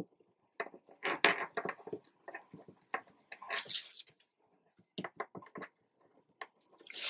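Backing strips being peeled off adhesive tape stuck to paper: irregular crinkly rustles and crackles, with two longer hissing peels, one about three and a half seconds in and one near the end.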